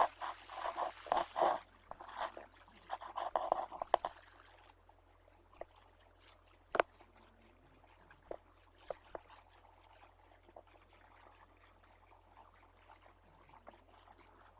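A dog snoring: a few rough, fluttering snores in the first four seconds or so, then only faint background with a few soft clicks.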